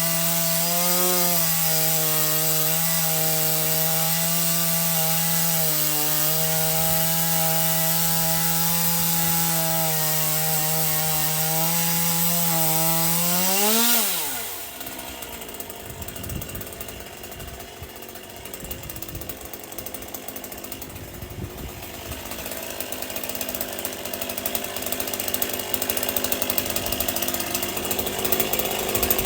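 Stihl MS 201 C-M two-stroke chainsaw cutting a large Douglas fir round, the engine holding a steady high pitch under load. About halfway it revs briefly, then winds down sharply to a much quieter running sound, which grows louder again near the end.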